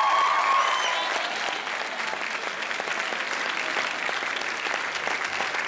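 A boys' choir's final held chord ends in the first second, then the audience applauds steadily.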